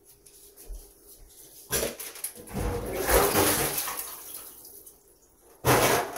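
Water running and splashing for a couple of seconds, with a short loud clatter near the end.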